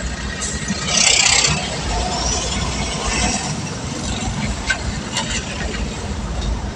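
Motorcycle riding along a road: steady engine and road rumble with wind noise on the microphone, and a louder rush of noise about a second in.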